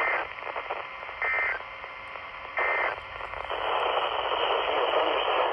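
NOAA Weather Radio's end-of-message data bursts: three short, loud two-tone warbling bursts about 1.3 seconds apart, the SAME code that marks the end of an alert, over radio static. The static hiss then grows louder from about halfway through.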